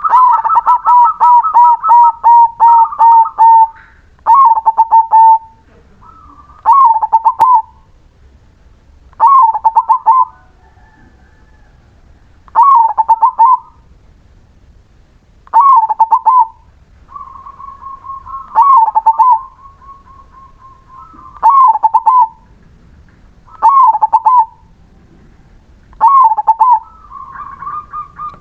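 Crossbred zebra dove (perkutut) singing its cooing song. It opens with a rapid run of repeated coos for about four seconds, then gives short phrases of a few coos roughly every two and a half to three seconds.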